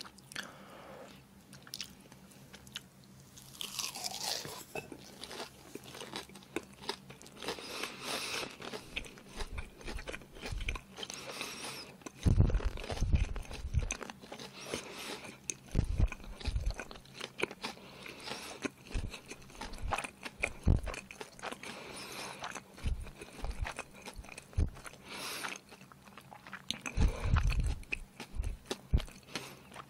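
Close-miked chewing of a pan-fried marine-worm pancake, with irregular wet mouth clicks and a few heavier low bumps of biting and chewing.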